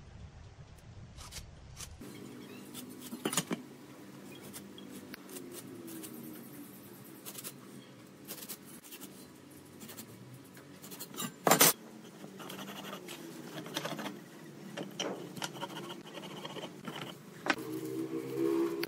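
A pen scratching marking lines onto planed wood, with the clicks and scrapes of a metal rafter square being set down and slid across the board. One sharper knock stands out about two-thirds of the way through.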